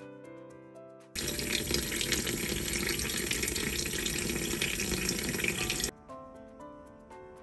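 Kitchen tap water pouring onto vegetables in a glass bowl in a sink: a steady rush that starts sharply about a second in and cuts off sharply about five seconds later. Light background music with a simple plucked melody plays before and after it.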